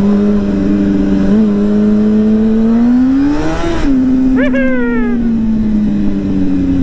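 Motorcycle engine running at steady revs, revving up about three seconds in and easing back a second later. A brief high-pitched falling sound comes about four and a half seconds in.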